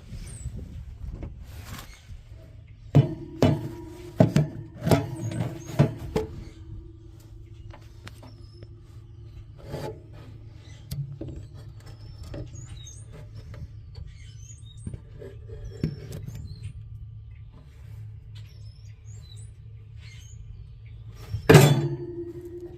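Metal clinks and knocks of smoker parts being handled while the in-chamber temperature sensor is refitted. The knocks come in a quick cluster early, then scattered small clicks follow, and one loud knock comes near the end. Faint high chirps run underneath.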